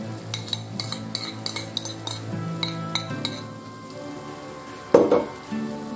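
Cookware and a utensil clinking against a pan and bowl in a string of light clinks over the first three seconds, then one louder knock about five seconds in. Background music plays throughout.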